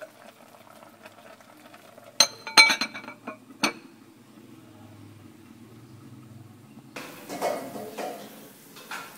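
Glass pot lid clinking against a cooking pot several times in quick succession, each clink ringing briefly. Near the end comes a longer scraping, rustling clatter.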